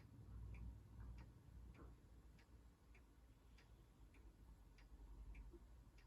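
Faint, even ticking, a little under two ticks a second, over a low hum, with the room otherwise near silent.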